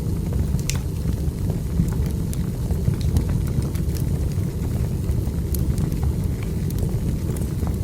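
Wood fire burning: a steady low rumble of flames, with irregular sharp crackles and pops from the burning logs.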